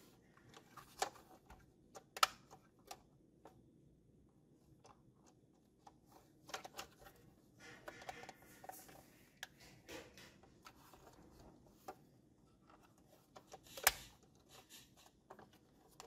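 Scattered clicks, taps and light rustles of a plastic toy ambulance being handled, its parts turned and pressed in the hands. The sharpest click comes near the end.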